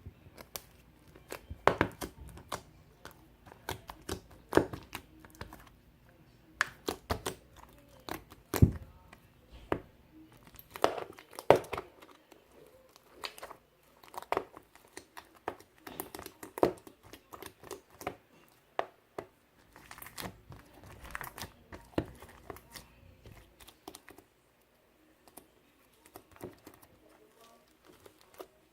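Irregular crinkling and tearing, like something crumpled or torn by hand, with many sharp crackles and clicks that thin out near the end.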